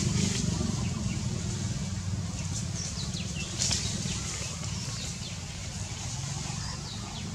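Forest ambience: a steady low rumble, with a few short, high, falling chirps around the middle and again near the end, and a brief rustle or crack of foliage a little past halfway.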